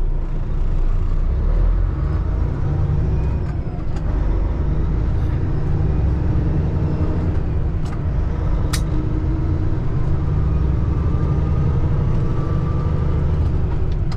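Cummins ISX15 diesel engine of a Peterbilt 579 semi truck running at a steady low drone, heard from inside the cab while driving. A couple of short sharp clicks come about eight seconds in.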